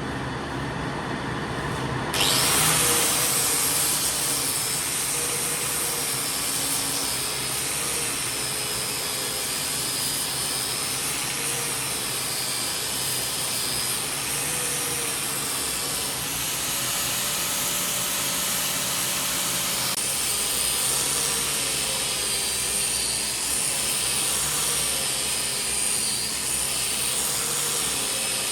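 An electric power tool running steadily, its pitch wavering slightly; the sound changes abruptly about two seconds in.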